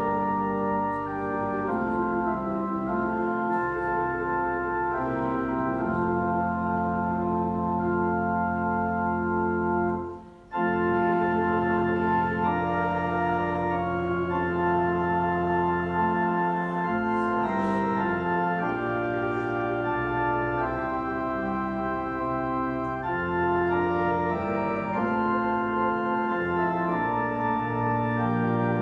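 Church organ playing a hymn in slow, held chords that change step by step, with a brief break about ten seconds in.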